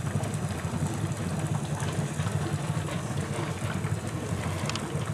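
Oxyhydrogen (HHO) torch flame burning steadily with an even rushing hiss, fed at about 8 liters a minute from an HHO electrolysis cell.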